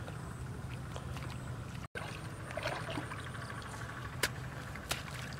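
Water sloshing as feet wade through a shallow muddy channel, and a hoe chopping into the mud bank, with two sharp knocks about four and five seconds in, over a steady low rumble.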